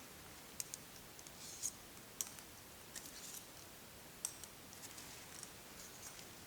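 Scattered light, sharp clicks and ticks, about a dozen at irregular intervals, over a faint steady hiss.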